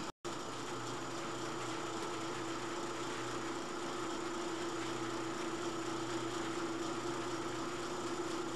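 Roll-up shop door being raised by its electric opener: a steady motor hum with a whine, cut off for a moment just after the start.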